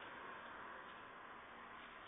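Near silence: the faint steady hiss of a security camera's microphone, with two faint ticks.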